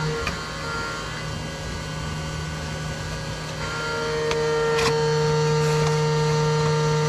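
Steady humming of a CNC mill running a machining job, its higher tone coming in and growing louder a little before halfway. Over it, a cardboard shipping box is handled and folded, with a sharp tap a little after halfway.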